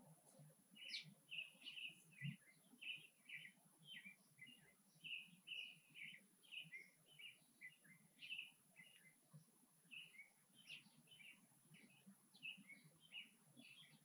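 Faint, continuous chirping of small songbirds: short chirp notes repeating about two to three times a second.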